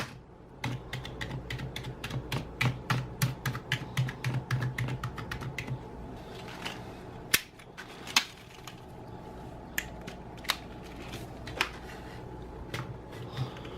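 Typing on a DBPOWER RGB membrane keyboard with mechanical-feel keycaps: a fast run of keystrokes for about the first six seconds, then slower, scattered key presses.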